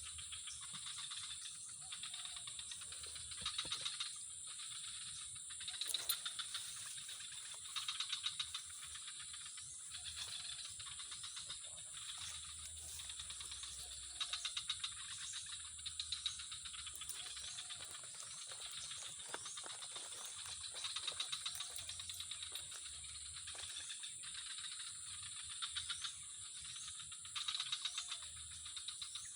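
Outdoor animal chorus: a steady high-pitched insect drone, with short rattling trills that repeat every second or two.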